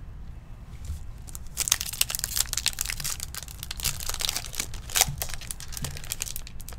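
2021 Topps Stadium Club baseball card pack's foil wrapper being torn open and crinkled in the hands. After a quiet start, a dense run of sharp crackling begins about a second and a half in, loudest about five seconds in.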